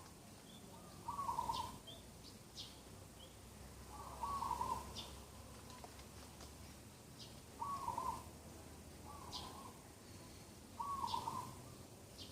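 Wild birds calling: one bird repeats a short, low-pitched call five times, roughly every three seconds, while another bird gives brief high chirps in between.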